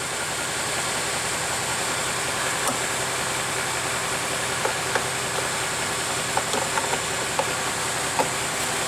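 Bus diesel engine idling steadily, heard as an even drone with a faint hum, with a few light clicks scattered through as fuses are handled.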